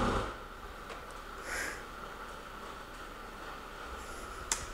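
A Skar SDR 12-inch subwoofer's low test tone dies out in the first moment as its voice coil burns out. What follows is quiet: a faint steady high whine, a short breath-like hiss about a second and a half in, and a single click near the end.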